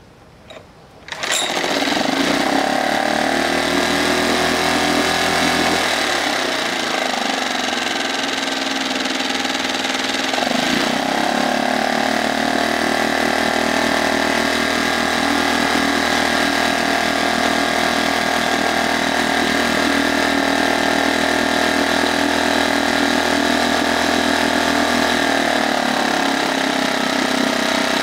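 A new HDX F 2.6 BMS single-cylinder four-stroke outboard motor starting about a second in and then running with its leg in a barrel of water. Its speed drops about six seconds in, picks up again near ten seconds and shifts once more near the end.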